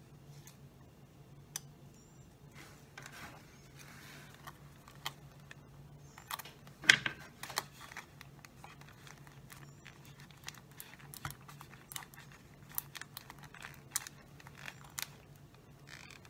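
Thin plastic from a soda bottle being handled and pressed into place: scattered crinkles, clicks and taps, the loudest about seven seconds in, over a faint steady low hum.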